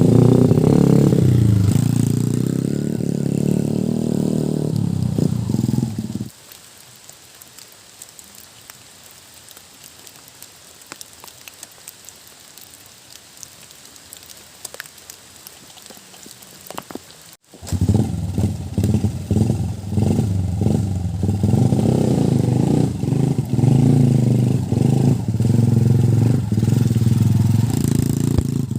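Trail motorcycle engine running and revving for about six seconds, then a quiet stretch of faint hiss and scattered ticks. About seventeen seconds in, the engine comes back suddenly and revs unevenly, rising and falling.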